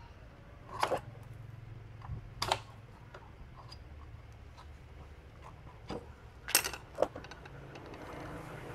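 Metal hand tools clinking and knocking against scooter transmission parts as something is pried: a few sharp metallic clinks, two of them close together past the middle, over a faint steady low hum.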